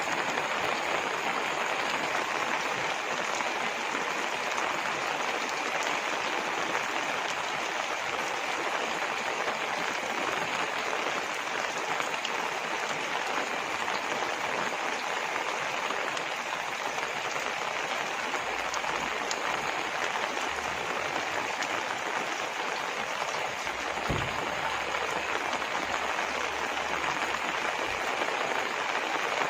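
Steady rain falling: an even, unbroken hiss with no let-up.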